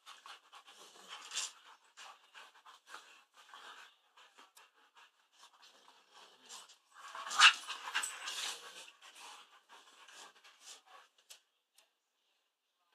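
Two dogs licking and mouthing at each other, with short breathy spurts coming irregularly; the loudest spurt is about seven and a half seconds in.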